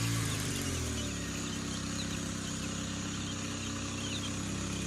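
A steady low machine hum runs throughout, with a few faint, short, high peeps from young chicks scattered over it.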